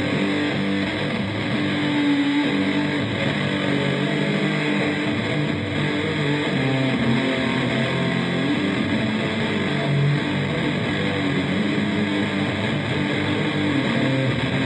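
Electric guitar playing an improvised droning noise riff, dense and unbroken at a steady level.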